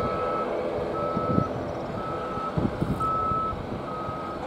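Reversing alarm on a construction vehicle beeping steadily, one high beep about every second, over a steady engine drone.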